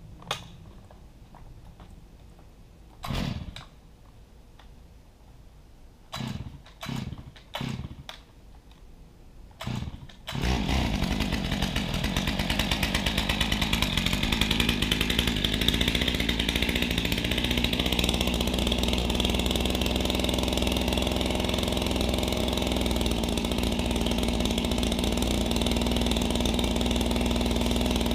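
A few short bursts of noise, then about ten seconds in an engine starts and runs on steadily at idle.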